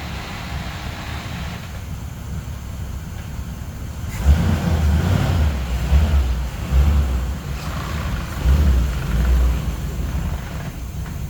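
A vehicle engine running with a low rumble that grows louder in uneven surges from about four seconds in.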